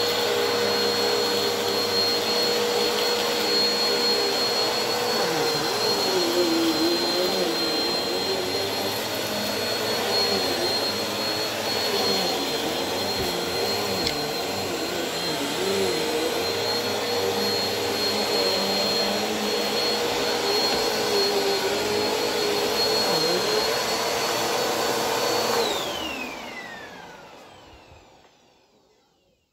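Bagless upright vacuum cleaner running on a shag rug with a steady high whine, the lower part of its sound wavering as it is pushed back and forth. About 26 seconds in it is switched off, and the whine falls as the motor winds down.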